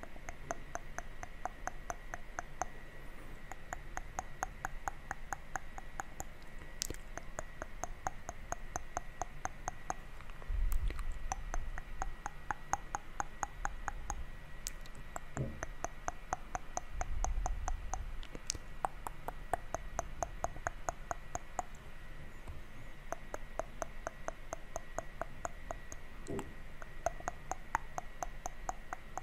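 Close-miked ASMR mouth sounds: a long run of quick tongue and lip clicks, several a second, with a couple of soft low thumps about a third of the way in and near the middle.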